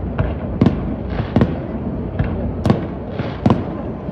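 Aerial firework shells bursting in a quick, irregular string of sharp bangs, about two a second, over a steady low rumble.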